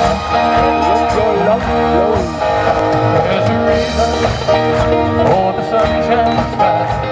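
Live country-rock band playing an instrumental passage: electric guitars over drums and bass, with guitar notes that slide and bend up and down.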